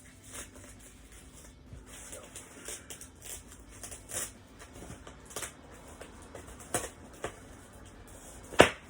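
Plastic parts and packaging being handled: light rustling with irregular sharp clicks, and one louder click near the end.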